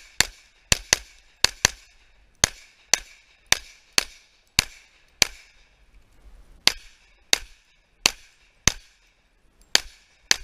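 A string of about eighteen pistol shots, the first few in quick pairs, then single shots about every half second to a second.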